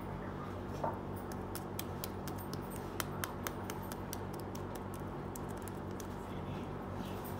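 Small plastic clicks and taps of a toy being handled, thickest in the first half, over a steady low hum.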